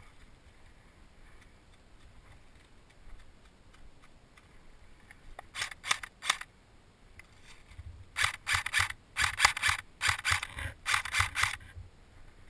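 Sharp clicks in quick clusters: three about halfway through, then four rapid groups of clicks near the end, which are the loudest part.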